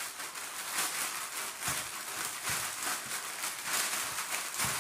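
Thin plastic shopping bag crinkling and rustling as it is handled and gathered closed, with flour and chicken strips inside.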